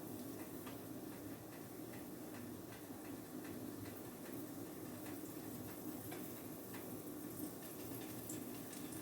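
Pancakes cooking in a buttered frying pan: a faint steady sizzle with many small scattered ticks and pops, over a low steady hum.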